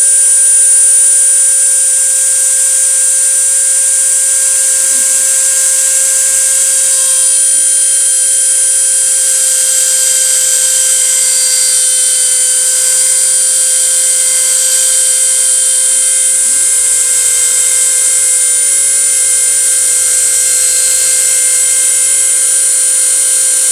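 CNC router's high-speed spindle running steadily through a test cut: a loud, constant high whine over a hiss. A second, slightly lower tone joins about two-thirds of the way through.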